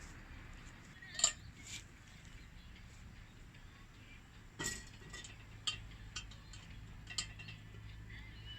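Metal camp gear clinking and knocking: about five light, separate clinks spread over several seconds, above a faint steady background.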